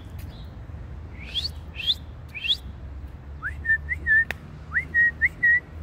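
A person whistling to call a dog: three quick rising whistles, then a run of short whistled notes that each slide up and hold. A single sharp click comes about midway.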